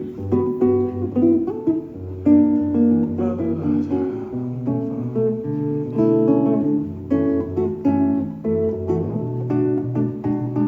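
Acoustic guitar playing an instrumental passage, chords and plucked notes with no voice.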